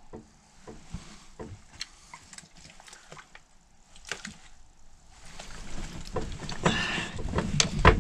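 Bedding rustling and scattered small clicks and knocks as a person moves about in bed, growing louder and busier in the second half as he lies down under a quilt.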